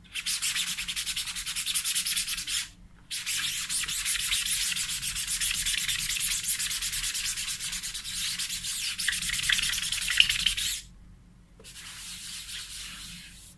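A cloth rag scrubbed rapidly back and forth over a screen-printing mesh, washing the printed PVC matt ink out of the screen with solvent. The rubbing comes in two long bouts with a brief pause between them, then goes on more faintly near the end.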